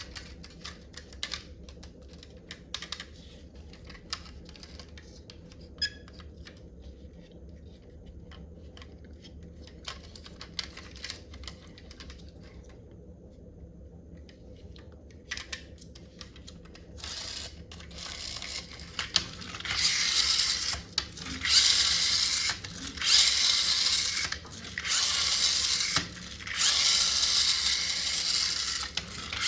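Scattered clicks and handling knocks, then from about halfway repeated bursts of a toy RC jeep's small electric motor and gears whirring, each lasting a second or two with short breaks between.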